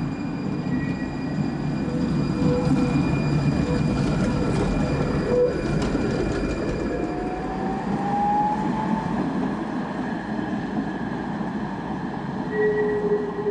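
Tatra tram running over street track as it pulls out and passes, a continuous rumble of wheels on rail. A rising whine comes in about halfway through, and a steady high squeal comes near the end.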